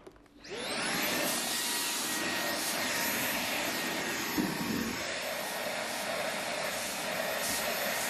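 Jimmy JV85 cordless handheld vacuum cleaner switched on about half a second in, its motor spinning up with a rising whine and then running steadily.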